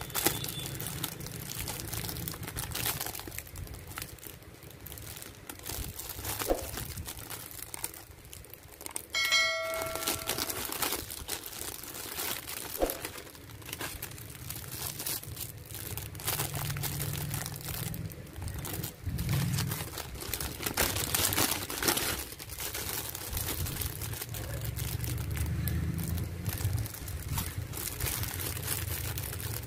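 Clear plastic bags around miniature dolls crinkling in irregular rustles as they are handled. About nine seconds in, a brief ringing tone, like a ding.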